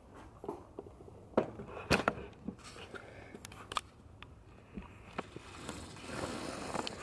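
Scattered light clicks, knocks and scrapes of hands working the plastic wiring-harness connector of a Jeep Wrangler tail light, with a stretch of rustling near the end.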